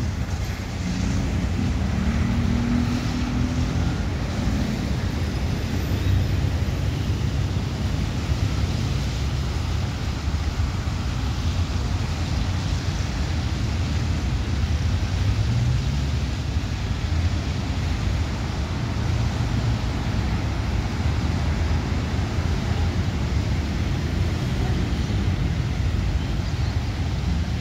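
Wind buffeting the microphone: a steady, unsteady low rumble with an even hiss above it and no distinct events.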